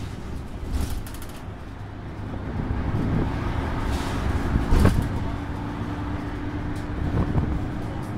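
Interior running noise of a Mercedes-Benz Citaro C2 articulated city bus under way: a low engine and road rumble that grows louder about two and a half seconds in. There is a single clunk near the middle, and a steady hum comes in shortly after it.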